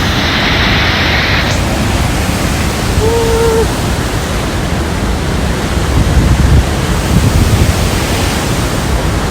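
Steady, loud rush of water at Murchison Falls, the Nile pouring through its narrow gorge. A short steady tone sounds briefly about three seconds in.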